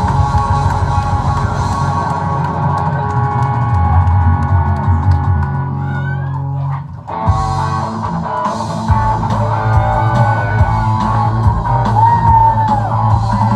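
Rock band playing with distorted electric guitar, bass and drum kit. About seven seconds in the music drops out for a moment, then comes back with the lead guitar bending notes.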